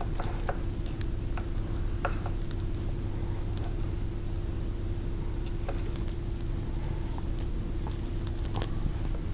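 Scattered light clicks and taps of metal parts as a hand wheel is turned onto a belt-grinder surface grinder attachment and the housing is handled, over a steady low hum.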